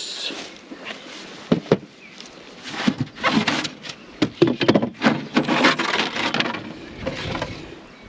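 Polystyrene nuc box being opened and its wooden frames handled. There are two sharp knocks about a second and a half in, then several seconds of scraping and rubbing of polystyrene and wood, with small clicks.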